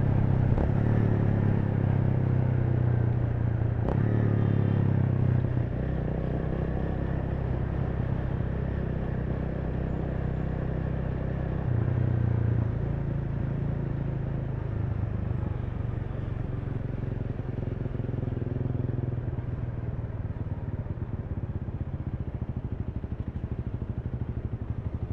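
Honda Rebel 300's single-cylinder engine running under the rider, louder for the first five seconds, then easing off, with a short pull about twelve seconds in before it settles to a steady lower run.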